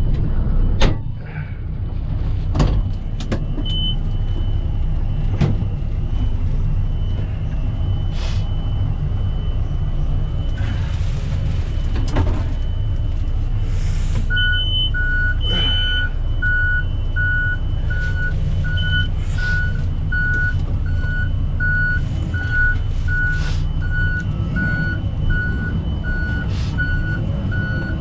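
Backhoe's diesel engine running steadily, with several sharp metallic knocks. About halfway through, a backup alarm starts beeping regularly, a little more than once a second, as the machine reverses.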